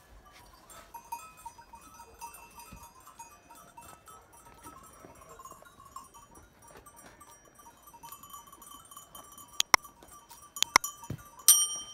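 Small bells on a flock of sheep and goats tinkling faintly as the animals move, with a few sharper clinks and one louder bell ring near the end.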